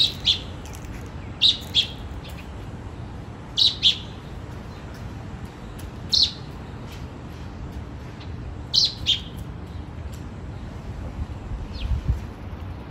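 American robins chirping: short high call notes, mostly in pairs, every two to three seconds, over a steady low background noise.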